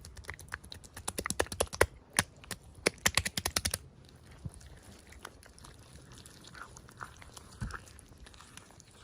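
Hands handling small plastic toy packaging: a quick run of sharp clicks and taps for about four seconds, then softer, scattered taps and rustling.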